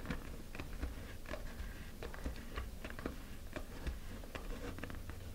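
Hobby knife blade scoring along the moulded groove of a plastic model-rocket nose cone to cut off its shoulder: faint, irregular small scratches and clicks as the blade catches in the plastic.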